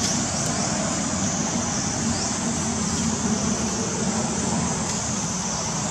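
Steady outdoor background of insects droning high and shrill, with short rising notes repeating every second or so, over a low rumble.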